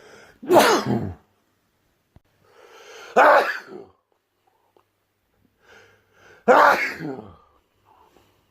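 A person sneezing loudly three times, roughly three seconds apart. Each sneeze is a sudden burst that trails off within about a second, and the second and third are led in by a short breathy intake.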